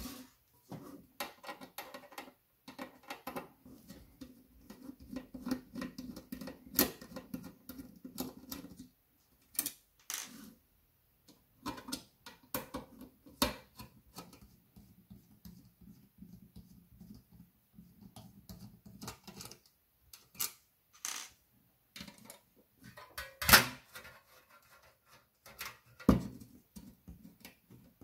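A screwdriver backing out the mounting screws of a cooling fan from a sheet-metal power supply case: stretches of steady scraping as the screws turn, among many irregular metallic clicks and knocks, with the loudest knocks near the end.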